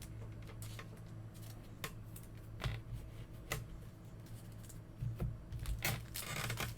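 Faint handling of trading cards on a table: scattered light clicks and taps, with a short rustle about six seconds in, over a steady low hum.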